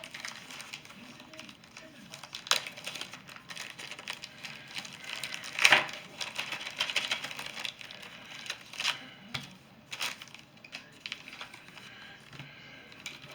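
Plastic bags and packaging being handled and crinkled while coins and holders are unpacked, with a few sharp clicks and taps, the loudest about six seconds in.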